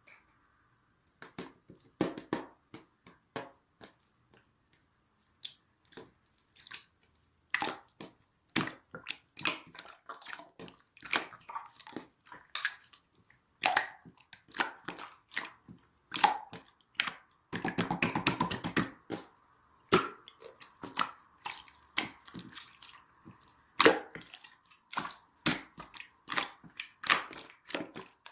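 Clear slime being squeezed, poked and stretched by hand, giving irregular sticky clicks and bubble pops, with a quick run of rapid clicks a little past halfway.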